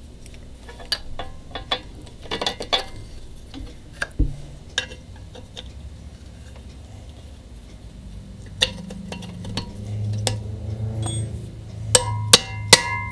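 Scattered light clicks and clinks of bolts and a spring plate being handled and set onto a steel swivel rocker base. Near the end come sharp hammer strikes on the metal that ring briefly.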